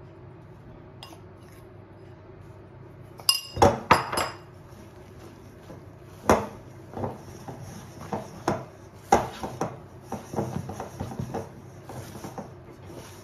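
A spoon and a spatula clinking and knocking against a glass mixing bowl and a ceramic bowl while ground almonds and flour are folded into meringue. A quick run of loud clinks about three seconds in, single sharper knocks around six and nine seconds in, then a patter of lighter taps.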